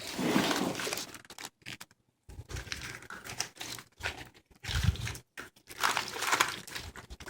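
Bundled automotive wiring harness being handled: irregular bursts of rustling and crinkling from its plastic loom, tape and connectors, with short pauses between handfuls.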